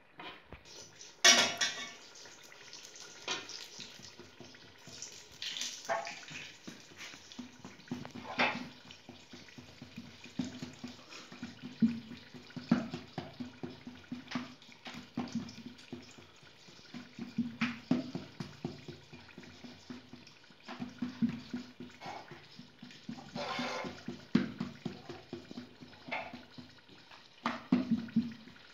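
Hands working bolani dough on a floured wooden board: irregular pats, presses and scuffs with light knocks, the sharpest knock about a second in.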